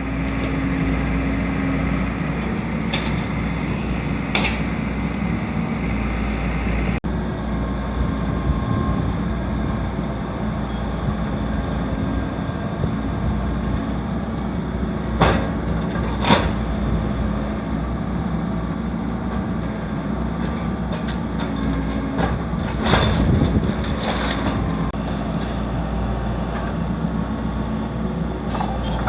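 Excavator's diesel engine running steadily, with a few sharp knocks and clanks from the demolition work breaking concrete.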